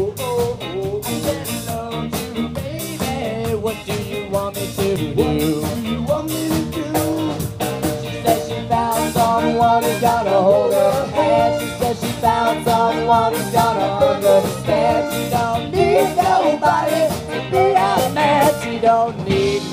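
Ska band playing live: tenor saxophone and trumpet over electric guitar and drums, with a steady beat.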